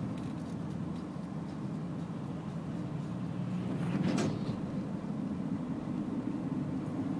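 A car's engine and tyre noise as heard inside the cabin, a steady low rumble while driving slowly. About four seconds in there is one brief knock.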